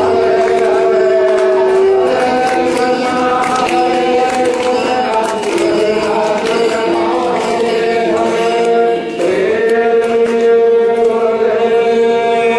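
Devotional chanting sung in long held notes, stepping to new pitches and sliding up to a fresh held note about nine seconds in.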